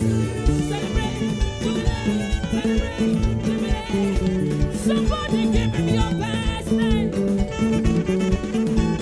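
Live church praise music from a choir's band: an upbeat song with a steady beat.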